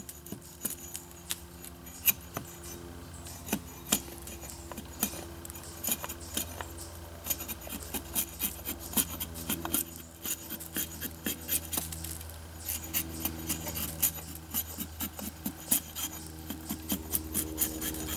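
Axe head, gripped in the hand without its handle, shaving down the side of a split piece of wood in short, irregular strokes, each with a sharp click or scrape as the blade bites into the grain.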